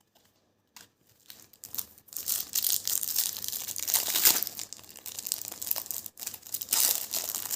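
Wrapper of a Topps Slam Attax trading-card packet crinkling and tearing as it is opened by hand, starting about a second in and going on in uneven rustling surges.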